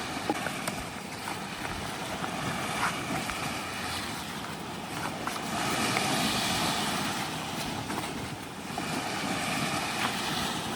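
Surf and wind noise, a steady rushing that swells briefly about six seconds in, with a few faint clicks.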